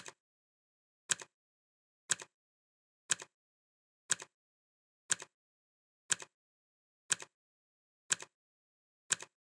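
Clock ticking sound effect, one tick a second, each tick a quick double click, with complete silence between ticks.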